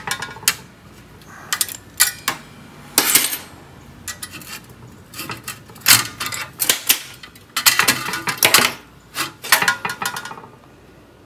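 Locking-plier clamps being released and taken off a steel pedal bracket and panel, then the steel parts handled: a string of irregular metallic clanks and clicks with short ringing, dying away near the end.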